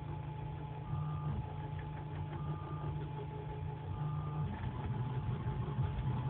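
Orca v0.3 3D printer running a print: a steady mechanical hum from its stepper motors, with a brief higher whine about every second and a half as the print head moves.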